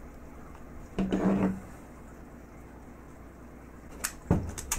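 Steel hand tools (pliers and a screwdriver) knocking and scraping against a neodymium pot magnet and its steel eye bolt as the eye bolt is tightened: a short scrape about a second in and a few sharp metal clicks near the end.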